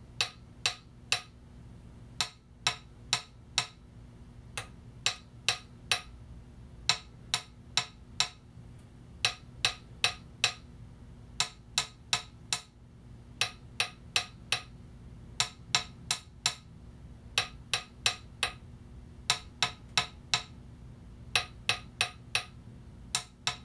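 A stick tapping the rims of two Sony PS-X800 aluminium turntable platters in turn, in quick clusters of two to four sharp knocks with short pauses between. This is a tap test of platter resonance: the stock platter with its factory soft damping pads set against a constrained-layer damped and stiffened platter fitted with a mat.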